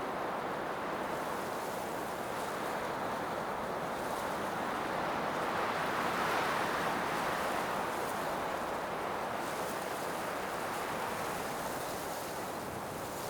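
Blizzard wind blowing steadily, building to a stronger gust about halfway through and then easing off.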